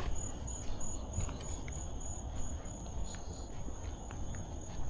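Insects trilling steadily in high, even pulses, about three a second, over a low outdoor rumble and a few faint clicks.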